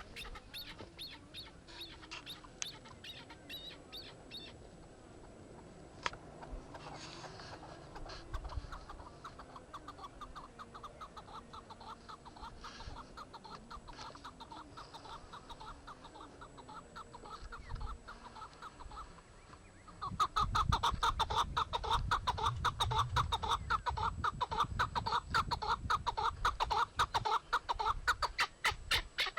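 Animal calls: a fast, evenly repeated chirping that goes on steadily and becomes much louder about two-thirds of the way in.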